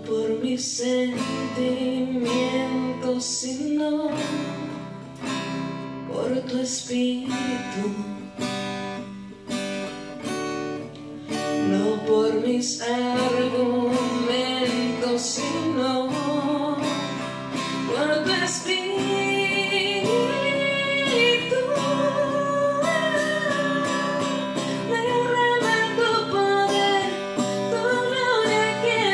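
Acoustic guitar strummed with a woman singing over it; the voice carries a wavering melody, most prominent in the second half.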